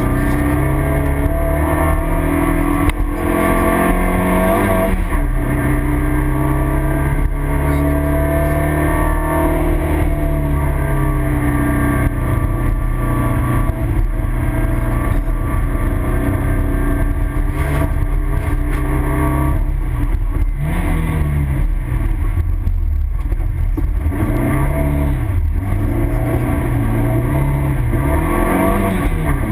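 Skoda Felicia 1.3's four-cylinder engine under hard driving, heard from inside the cabin: the revs climb and drop through the gears, with quick rises and falls of revs in the last third.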